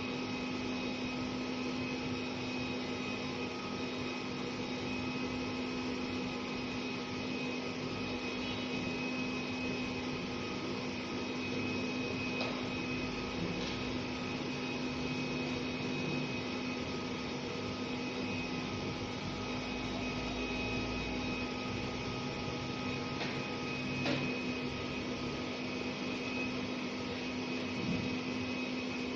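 Steady whir of a BGA rework station's fans and hot-air blower running, with a constant electrical hum underneath and a couple of faint ticks.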